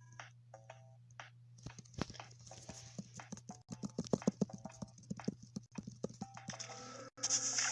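A rapid, uneven run of clicks and knocks, loudest in the middle, over a steady low hum, with a short burst of hiss near the end.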